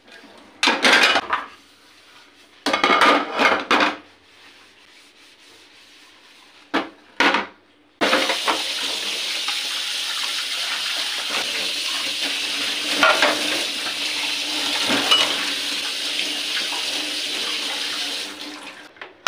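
Dishes and pans knocking and clattering in a stainless steel sink as they are washed by hand, a few separate clatters in the first eight seconds. Then a kitchen tap runs steadily, water splashing over a pot being rinsed, and stops near the end.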